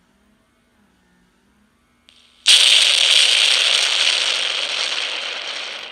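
A sudden, loud burst of crackling noise, like an explosion sound effect from a small speaker, starting about two and a half seconds in and slowly fading away. It is most likely the fake bomb prop's detonation sound.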